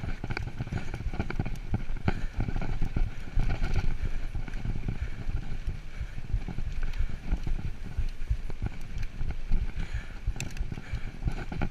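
Mountain bike being ridden fast down a dirt trail: a continuous, irregular clatter of knocks and rattles from the bike and tyres over the bumpy ground, over a steady low rumble.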